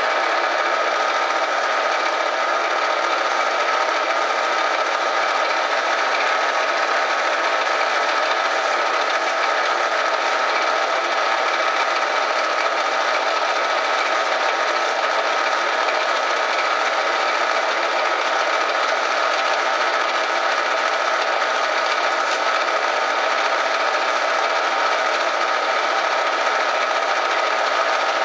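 Metal lathe spinning a brass workpiece at about 970 RPM while a fine file is stroked lightly against it, smoothing a ridge on the turned cone: a steady, even rasping hiss with a constant high tone running through it.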